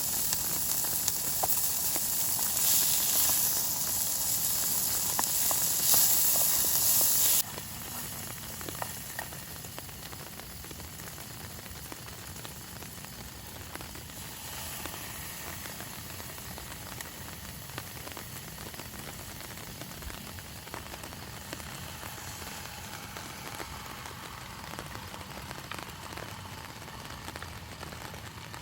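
A loud steady hiss with a few light ticks cuts off abruptly about seven seconds in. It gives way to the quieter steady patter of rain with scattered drips.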